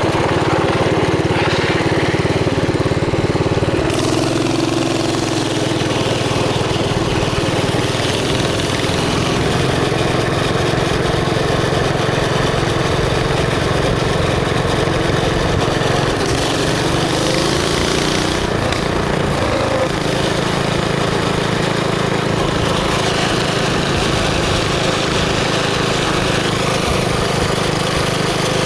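Mini bike's small engine running steadily while the bike is ridden, its note shifting a little a few seconds in and again about two-thirds through as the throttle changes.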